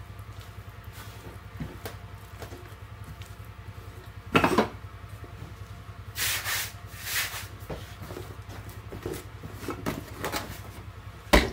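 Hands handling dough on a floured stainless-steel bench: light rubbing and tapping, a knock about four seconds in, two short swishes as flour is scattered across the bench, and a sharp click near the end, over a steady low hum.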